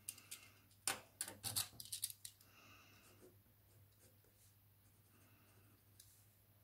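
A quick run of sharp clicks and taps as a pen is picked up and handled, then faint scratching of the pen writing on paper.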